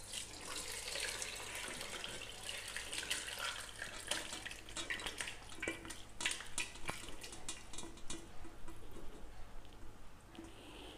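Whey of curdled milk pouring and splashing from a steel pot through a cotton cloth into a strainer, then a series of sharp clicks and splashes as the soft paneer curds slide out of the pot onto the cloth.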